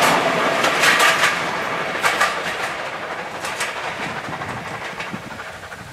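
A passenger train receding into the distance, its rumble fading steadily while its wheels click over rail joints a few times.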